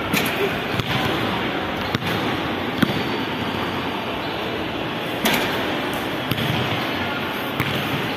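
A basketball's sharp thuds as it is bounced, passed and caught, several irregularly spaced hits echoing in a large mall atrium over a steady background din.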